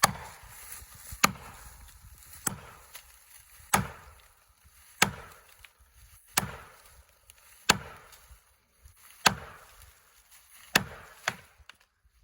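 Steady, evenly spaced hammer blows, about nine strikes, one every second and a bit, driving a felling wedge into the cut of a leaning tree that will not go over.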